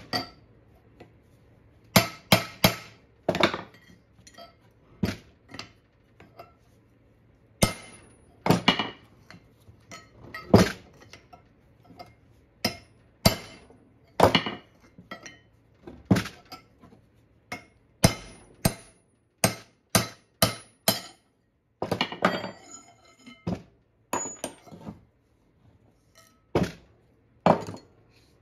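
Hammer striking a chisel held against the wheel bearing on the end of a Chrysler 8 3/4 axle shaft: sharp, ringing metal-on-metal blows at irregular intervals, often in twos and threes, with a run of quicker, lighter taps a little past the middle. This is the bearing being driven off the shaft with simple hand tools.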